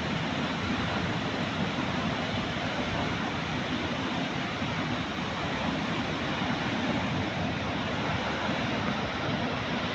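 Steady rush of running water, an even noise with no breaks or surges.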